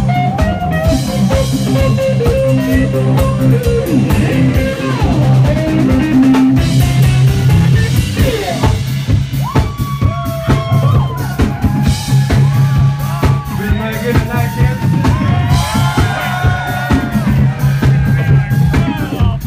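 Live blues-rock band playing an instrumental stretch: electric guitar over drum kit and bass guitar, loud and steady. From about halfway through, the lead notes slide and bend in pitch.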